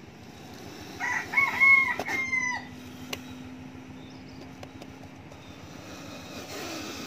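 A rooster crows once, about a second in: a loud crow of several arched notes lasting under two seconds.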